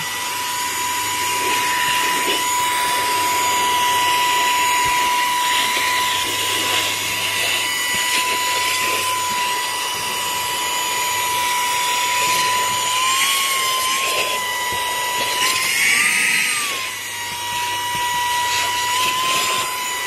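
Saker 3-in-1 cordless mini handheld vacuum with a brushless motor running on its high setting: a steady high-pitched motor whine over rushing air as it picks up dried cheese crumbs from a rubber car floor mat. The whine rises in pitch briefly twice in the second half.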